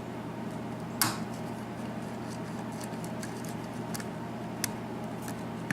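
Small metallic clicks and ticks of a lock pick working the pin stack of a Corbin KIK six-pin cylinder lock, with one sharper click about a second in and a few faint ticks after.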